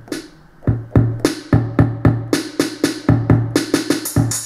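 Drum-machine sounds from Native Instruments Maschine, triggered by finger taps on MIDI Designer pads on an iPad. Low kick thumps mix with bright, sharp hits in a loose, irregular pattern that quickens after about half a second.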